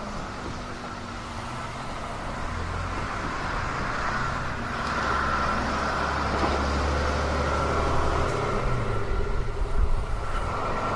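Sounds at a railway level crossing: the crossing's warning bell gives a steady high ringing while a vehicle's low engine rumble builds through the middle and fades. A sharper clatter comes near the end.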